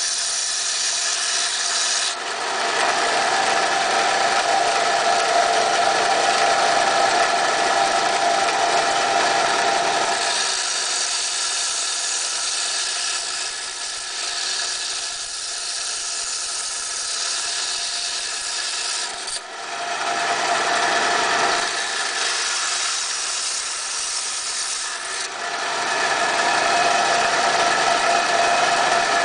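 Inland DFS-100 ReefKeeper diamond band saw running continuously while coral is cut for frags. Its tone shifts several times, growing louder and stronger-pitched for stretches of several seconds as the coral is pushed against the blade.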